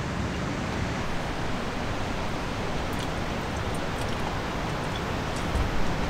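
Steady hiss of sea surf. A few faint clicks of chopsticks on a plate sound over it, and a low bump comes near the end.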